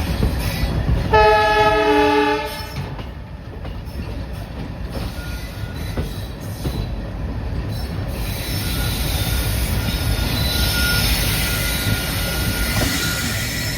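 WDM3A diesel locomotive's horn sounds one short multi-note blast of about a second, near the start, over the steady low rumble of the moving train. In the second half a thin, faint wheel squeal joins the rumble as the train takes the curve.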